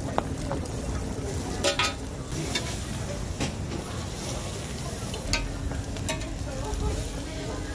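Egg-and-cabbage patty and bread sizzling on a hot flat-top griddle, with a few sharp clicks and scrapes of a metal spatula against the steel plate.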